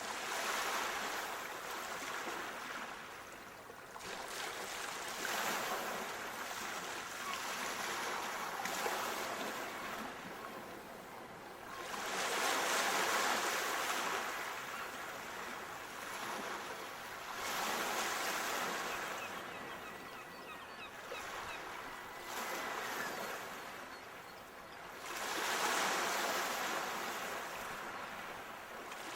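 Ocean waves breaking and washing in, the rush swelling and fading every few seconds, with two bigger surges about halfway through and near the end.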